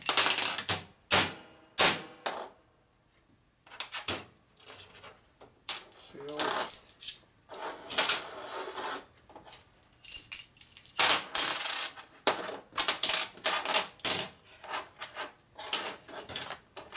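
Steel valve-train parts of a Panhead cylinder head, valves and their small hardware, clinking and clicking irregularly against each other and the workbench while being handled during assembly. Some knocks leave a short, high metallic ring.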